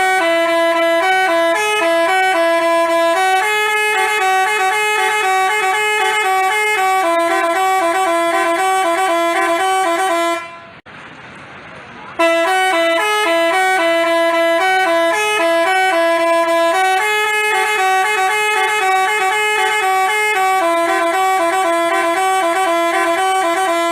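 Telolet basuri multi-tone bus horn playing a tune of held notes that step up and down. The same tune plays twice, with a short break about eleven seconds in.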